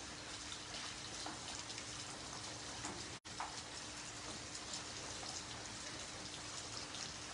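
Heavy rain falling on wet paved ground: a steady hiss of countless small drop impacts, with a faint steady hum underneath. The sound cuts out for an instant about three seconds in.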